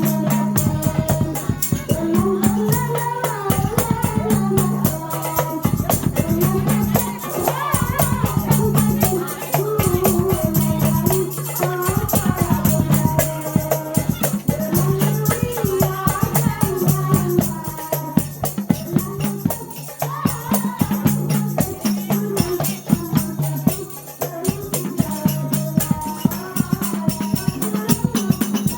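Hadrah ensemble playing: rebana frame drums beaten in a fast, dense rhythm with jingling percussion, under voices singing a melody.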